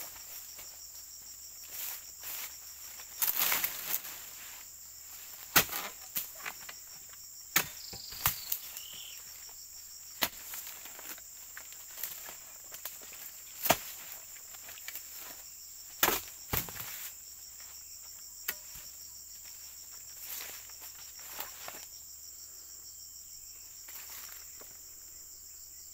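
A long-poled harvesting chisel striking the frond bases of an oil palm: a dozen or so sharp, irregular blows over a steady high insect drone.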